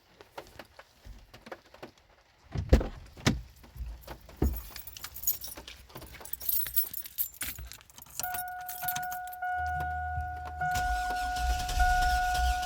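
Keys jangling with clicks and knocks, then the 2002 Chevy Blazer's warning chime sounds a steady tone about eight seconds in, and a low engine rumble joins it near the end.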